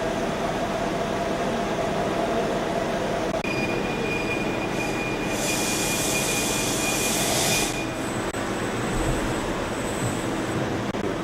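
Machine tool running steadily while machining a metal valve body. A high whine sets in about a third of the way in, and a loud hiss joins it midway for about two seconds before both stop together.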